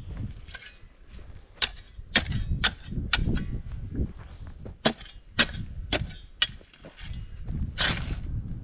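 Steel shovel working stony soil: a string of sharp clicks as the blade knocks against gravel and stones, then a longer rasping scrape near the end.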